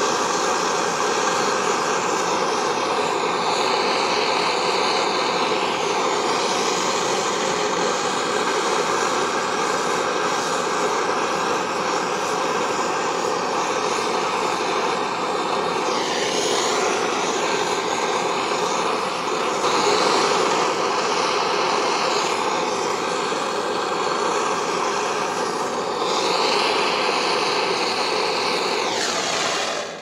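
Gas blowtorch running with a steady roar, its flame heating a small copper boiler fitting for silver soldering; the hiss shifts in tone a few times, and the torch is shut off at the very end.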